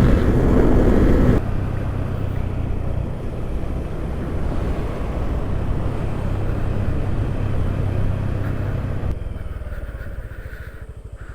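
Honda Super Cub's small single-cylinder four-stroke engine running steadily while riding, with background music fading out about a second in. Near the end it grows quieter and the engine's even beat comes through.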